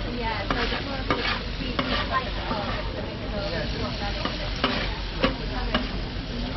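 Pork pieces sizzling on a hot flat-top griddle as a metal utensil scrapes and turns them, with scattered clinks of metal on the plate.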